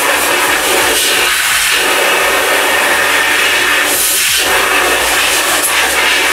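Compressed-air blow gun blowing dust out of a removed brake drum: a loud, steady hiss of air that cuts off just after it ends.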